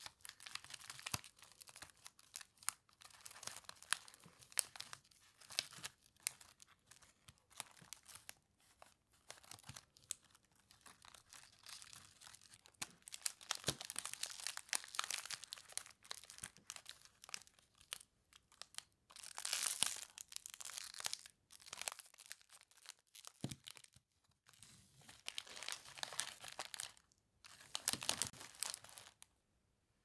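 Cellophane candy bag crinkling and crackling in the fingers as its neck is gathered and tied with a ribbon, in uneven bursts with louder stretches in the middle and near the end; it stops about a second before the end.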